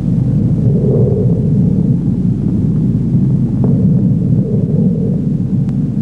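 Film projector running: a loud, steady low mechanical rumble.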